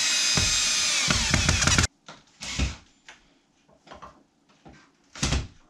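Ridgid cordless drill running under load as it drives a screw into the log wall, whining steadily then stopping abruptly about two seconds in. Several knocks follow, the loudest near the end.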